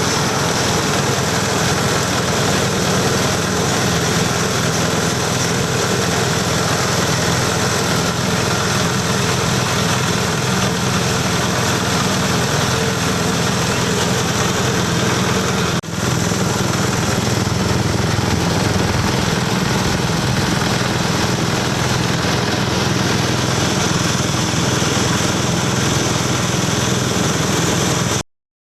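Multifunction grinding machine for rice husks, corn cobs and dry leaves running with a steady, loud drone. It dips briefly about sixteen seconds in and cuts off suddenly near the end.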